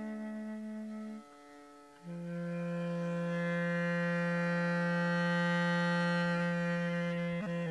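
Music: a wind instrument holding long sustained notes. One note ends about a second in, and after a short dip a lower note is held for several seconds, slowly growing louder.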